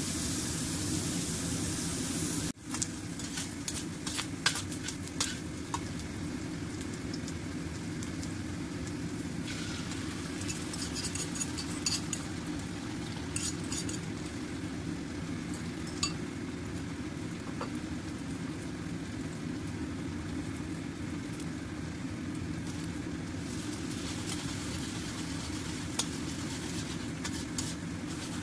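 A metal spatula scraping and clinking against a stainless steel wok as vegetables and egg are stir-fried. Under it are a low sizzle and a steady low hum, with a brief dropout a couple of seconds in.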